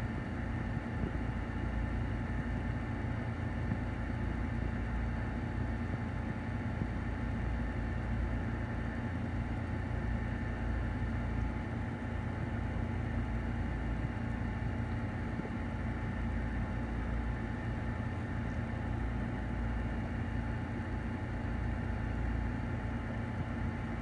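A steady low mechanical hum with a fainter hiss above it, even in level and unchanging.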